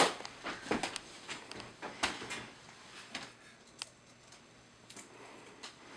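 A laptop lid snapping shut with a sharp click, followed by scattered lighter clicks and knocks as laptops are handled and their keys tapped.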